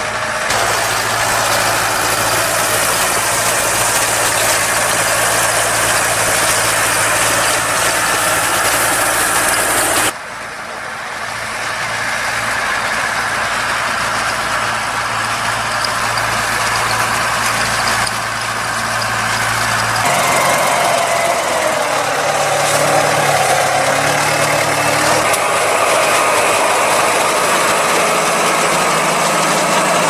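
Deutz-Fahr farm tractor diesel engines running steadily in a hay field, with the DX 3.70 pulling a rotary rake. The sound changes abruptly about ten seconds in and again about twenty seconds in. In the last third the engine note is different and wavers up and down in pitch.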